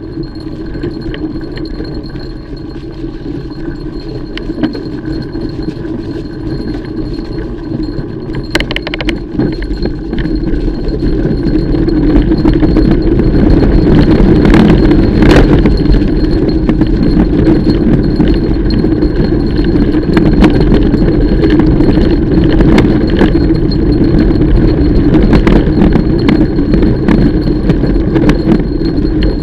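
Mountain bike being ridden on a trail: a steady rumble of tyres and wind with frequent rattles and clinks from the chain and frame, growing louder about twelve seconds in.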